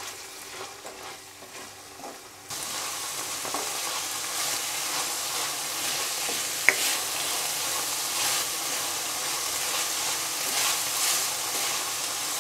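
Diced chicken, carrot and mushroom frying in a nonstick wok and being stirred with a silicone spatula. Scraping strokes sound over a sizzle that gets suddenly louder about two and a half seconds in, with a single sharp click near the middle.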